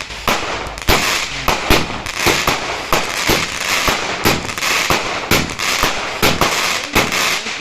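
Fireworks going off close by: a rapid run of sharp bangs, about two a second, over constant crackling.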